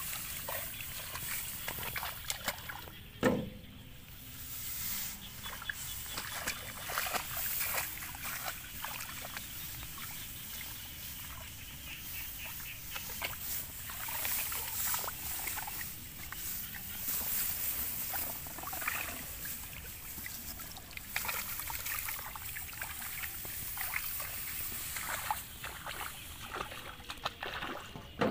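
Rice plants rustling and shallow paddy water splashing and trickling as hands move through them, with many small clicks and one sharp knock about three seconds in.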